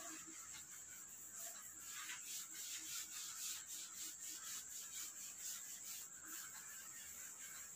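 Faint rubbing of chalk being wiped off a blackboard by hand.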